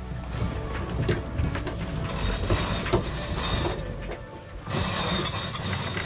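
Sailboat sheet winch ratcheting with sharp clicks of its pawls as the sheet is wound in with a winch handle while the boat is tacking.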